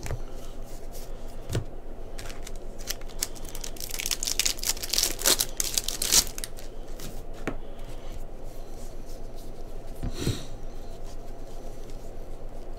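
2022 Bowman baseball trading cards being flipped through and slid against one another in the hands, with light ticks as cards are moved. About four seconds in there is a louder stretch of rustling and clicking lasting two seconds, as cards are handled and set onto a stack. A steady low hum runs underneath.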